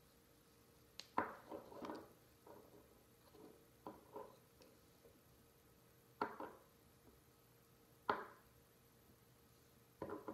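Small 10 ml roll-on bottles set down one at a time on a wooden tabletop: about five sharp knocks a couple of seconds apart, with softer clinks and handling sounds between.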